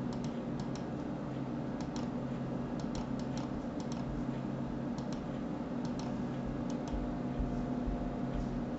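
Computer mouse button clicking, scattered single and double clicks, over a steady low hum.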